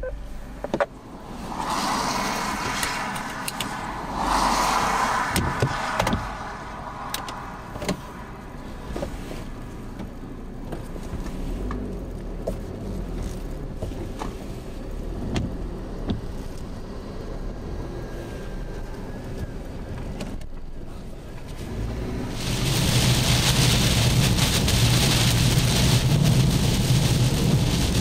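Car running, heard from inside the cabin, with scattered clicks and rustles. About 22 seconds in the sound jumps to a louder steady drone of the car driving on a wet highway, with rain and road noise over it.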